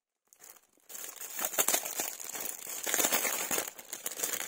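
Crinkly packaging being handled and opened by hand, crinkling and rustling steadily from about a second in.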